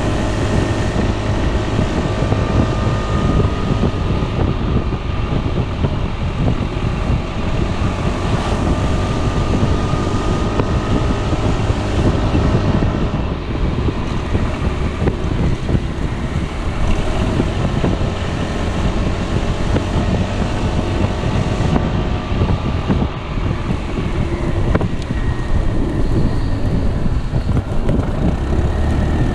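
Piaggio Beverly 300 scooter's single-cylinder four-stroke engine running under way, under wind buffeting on the microphone. The engine note drifts gently up and down as the speed changes.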